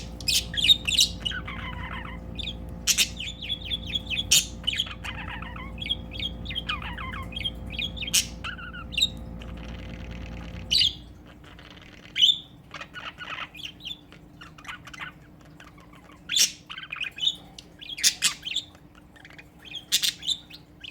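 Male budgerigar chattering and warbling in a rapid run of short chirps, squawks and clicks: courtship song to a female. A steady low background hum stops about halfway through.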